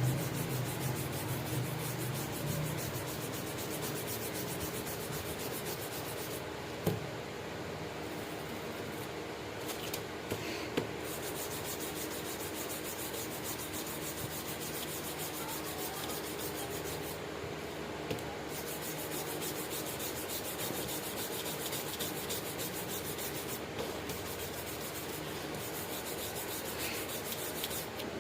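Continuous abrasive scrubbing of rust off a steel knife blade, with a faint steady hum underneath and a few small clicks around the middle.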